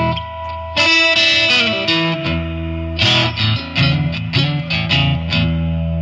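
Electric guitar played through a Fulltone OCD overdrive pedal and a home-built Tonemender EQ pedal, giving a distorted tone. A chord rings, is struck again about a second in, and is followed by several more quick strummed chords from about three seconds on.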